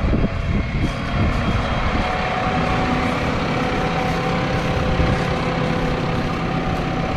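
Massey Ferguson 5S.115 tractor's four-cylinder diesel engine running steadily.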